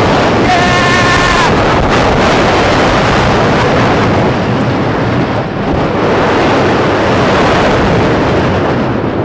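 Wind buffeting the microphone over the rumble of the Lightning Rod roller coaster train running down its track at speed. A rider lets out a brief yell about a second in, and the rush eases slightly near the end as the train levels out.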